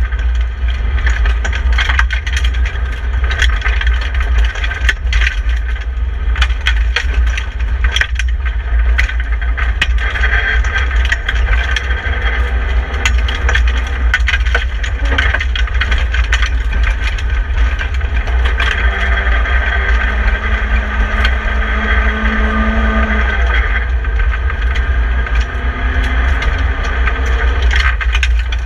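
BMW E30 318i rally car at speed on gravel, heard from inside the stripped cabin: the four-cylinder engine running with its pitch rising and falling through the gears over a heavy low rumble. Constant rattling and sharp clicks of gravel striking the body run throughout.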